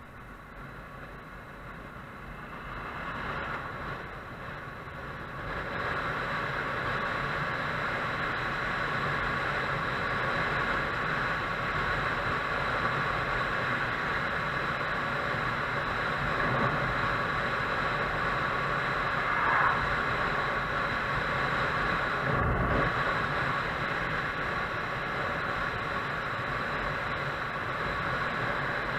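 A motorcycle under way: steady engine and wind noise, growing louder over the first six seconds and then holding.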